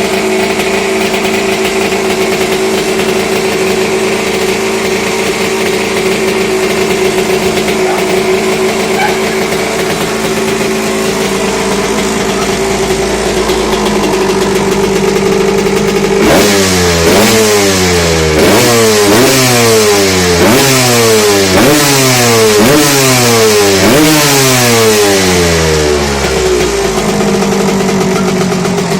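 Kawasaki KX 125's two-stroke single-cylinder engine idling steadily while warming up, then revved in repeated quick blips, about one a second, for some ten seconds before settling back to idle near the end.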